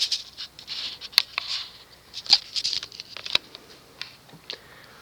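Metal ball-chain pull chain on a ceiling fan's light kit rattling and ticking irregularly as it swings after being pulled to start the fan on low, the clicks thinning out toward the end as it settles.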